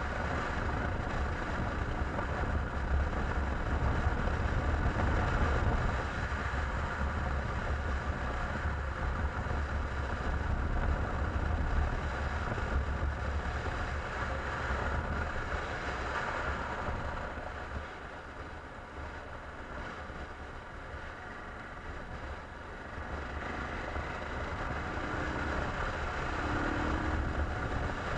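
1999 BMW F650's single-cylinder engine running steadily as the motorcycle rides along, a strong low drone mixed with wind noise on the microphone. The sound drops for a few seconds past the middle, then picks up again.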